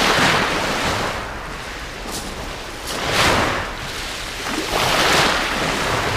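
Sea waves breaking and washing up the beach, a steady hiss that swells three times: at the start, about three seconds in and about five seconds in.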